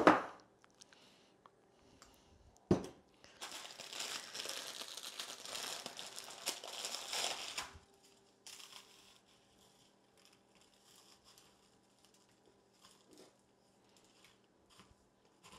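Crackers being crushed and crumbled by hand, a dry crackly rustling for about four seconds, after a single sharp knock.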